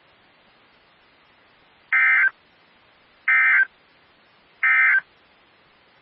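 Three short, identical bursts of Emergency Alert System digital data tones (SAME AFSK), about 1.3 s apart: the end-of-message code that closes an EAS alert.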